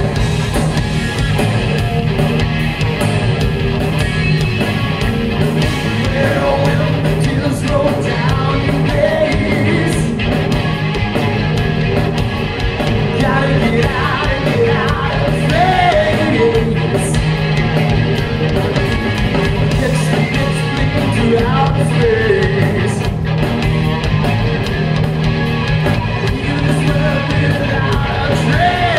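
Live rock band playing: electric guitar, electric bass and drum kit, with a male lead voice singing over them.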